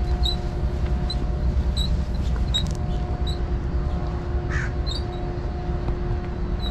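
A crow caws once about four and a half seconds in, with small birds chirping over and over. Under them runs a steady low mechanical hum with a constant tone.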